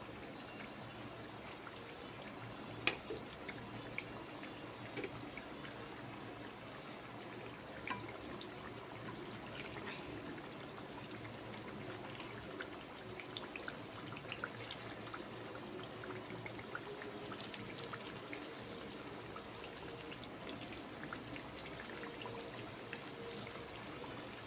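Potato cutlets frying in hot oil in a kadai: a steady sizzle with scattered small pops and crackles, and a sharper click about three seconds in and again near eight seconds.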